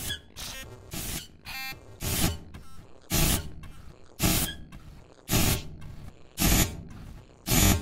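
Planetarium granular synth instrument for UVI Falcon sounding rhythmic bursts of hiss about once a second, with short buzzy, pitched grains in between.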